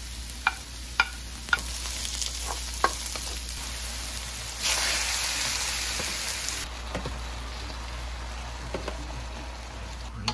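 Onion, ginger and garlic sizzling in hot oil in a wok, with a wooden spatula clicking against the pan several times in the first three seconds. About four and a half seconds in the sizzle jumps louder for about two seconds as raw chicken pieces go into the hot oil, then settles back to a steady frying hiss.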